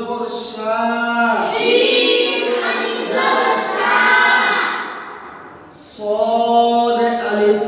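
Boys' voices reciting the Quran aloud together in a melodic chant, with long held notes. The chanting dies away about five seconds in and starts again about a second later.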